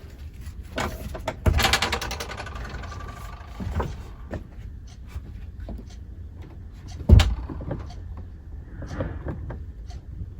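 Stiff electrical wire being pushed and pulled through a hole in a wall: a rattling scrape about a second and a half in, a smaller one near four seconds, and a single sharp knock about seven seconds in.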